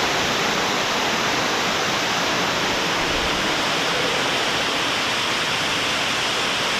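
Ruby Falls, a 90-foot underground waterfall, with a steady, even rush of falling water.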